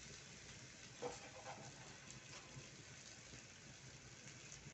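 Soya chunks coated in egg frying in a little oil in a kadhai: a faint, steady sizzle with scattered small crackles, one a little louder about a second in.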